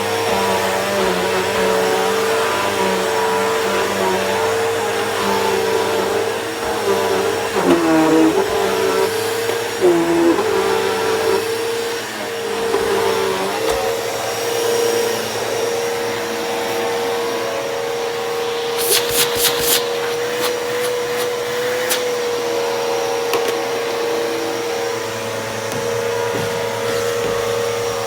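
Eureka Boss Victory upright vacuum cleaner running on carpet, a steady motor whine that sags briefly in pitch twice early on. About two-thirds of the way through, a quick run of rattling clicks as coarse debris is sucked up.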